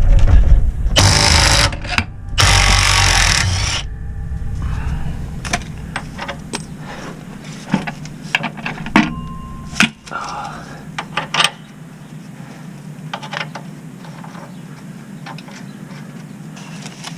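Impact wrench run in two short bursts, about a second and two and a half seconds in, spinning off the lower shock-absorber bolt. This is followed by scattered metal clinks and knocks as the loosened bolt, hardware and shock are handled.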